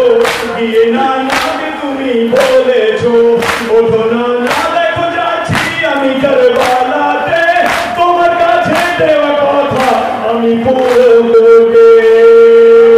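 A noha chanted by a lead male voice over a loudspeaker, with a crowd of men chanting along, kept in time by the mourners' hand strikes on their chests (matam) about once a second. Near the end the voices hold one long loud note.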